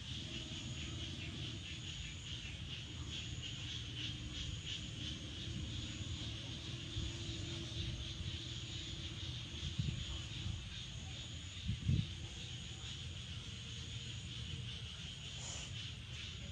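Steady chirping of insects in the background, with a low rumble under it and a couple of short soft bumps about ten and twelve seconds in.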